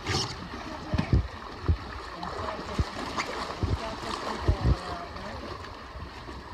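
Shallow river water running over rocks, with splashing from people wading through it and towing an inflatable tube. A few short dull thumps come through the steady water sound.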